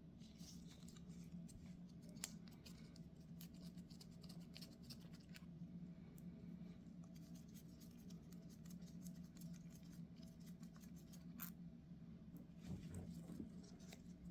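Faint scattered clicks and light scratching from small carburetor parts and hand tools being handled during disassembly, over a steady low hum.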